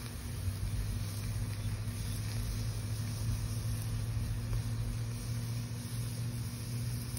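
Steak sizzling over hot coals on a charcoal kettle grill, an even hiss with faint scattered crackles, under a steady low mechanical hum that is the loudest sound.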